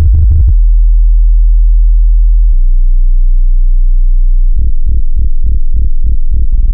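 Loud, very deep synthesized tones. A fast pulsing stops about half a second in and gives way to a steady low hum, which drops to a lower pitch a couple of seconds later. Near the end the tone pulses evenly, about three beats a second.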